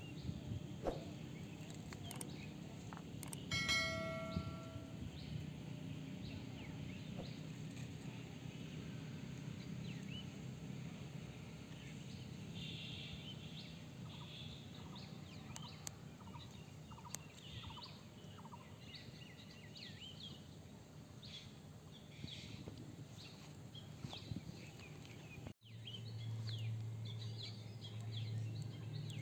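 Quiet outdoor ambience with small birds chirping. About four seconds in, a brief loud pitched call rings out, the loudest thing here. Near the end the sound drops out for an instant, and a low steady hum follows.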